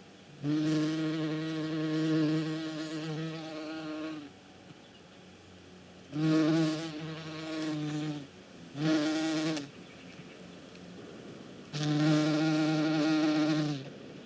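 Bee buzzing in four separate bursts: a long one of about three and a half seconds, two shorter ones in the middle, and another of about two seconds near the end, each a steady pitched buzz with short quieter gaps between.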